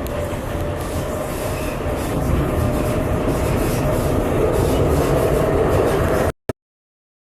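Steady in-flight cabin noise of a Boeing 737: an even rush of engine and airflow noise with a deep rumble and a thin steady tone. It grows a little louder about two seconds in, then cuts off suddenly near the end.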